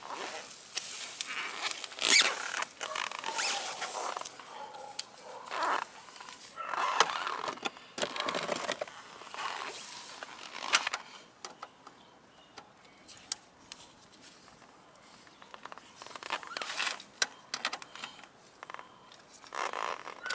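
Paper towel rustling and crumpling in irregular bursts as it wipes oil from around an engine drain plug. In the second half it goes quieter, with a few sharp clicks of a metal socket being handled.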